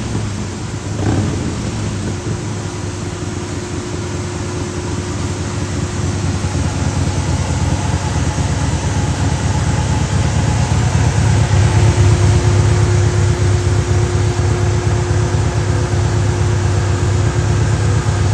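2007 Harley-Davidson Road Glide's 103-cubic-inch V-twin, fitted with a Feuling cam and a short exhaust, running loud and steady. It builds up over the first ten seconds or so, then holds near its loudest.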